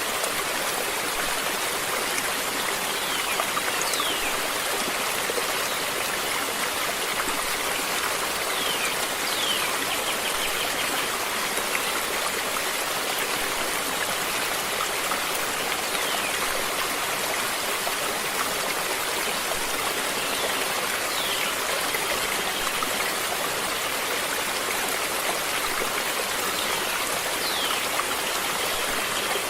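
Stream water running steadily, an even unbroken wash of sound. A few faint, short, high chirps sweep downward every few seconds over it.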